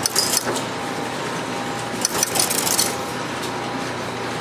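Bell System panel switch machinery running: a steady mechanical hum from the motor-driven shaft and gearing, with two bursts of sharp metallic clicking from the sequence switches, one at the start and one about two seconds in.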